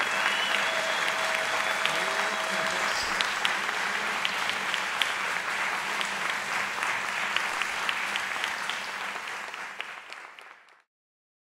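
Audience applauding, a dense patter of hand claps with a few louder single claps standing out. The applause fades away near the end and gives way to silence.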